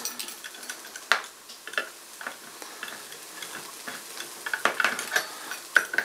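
Steel cap-lifter of a Victorinox Compact pocket knife levering and pressing into the rim of a tin can lid: irregular sharp metallic clicks and scrapes, one strong click about a second in and a quicker run of them near the end.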